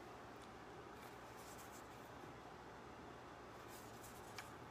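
Near silence: faint rubbing of hands handling a metal steelbook Blu-ray case, with one light tick about four seconds in.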